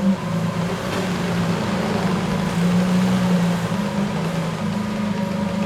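Lamborghini Countach LPI 800-4's V12 engine running at low, fairly steady revs, with a slight wavering in pitch.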